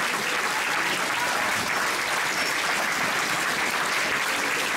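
A large audience applauding steadily, with no break in the clapping.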